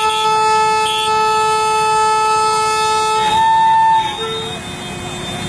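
A vehicle horn held in one long steady blast that stops about four seconds in, followed by a short toot.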